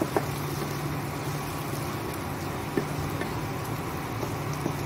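Spatula stirring boiled eggs and thick masala in a nonstick kadhai, with a few light taps and scrapes against the pan, over a steady low hum.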